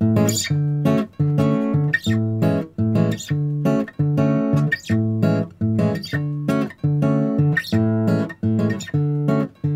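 Background music: acoustic guitar strumming chords in a steady rhythm, about two strums a second.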